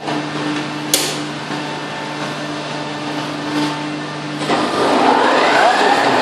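Zayer CNC milling machine running while machining a part: a steady hum with a sharp click about a second in, then, about four and a half seconds in, a louder, noisier cutting sound with a shifting whine.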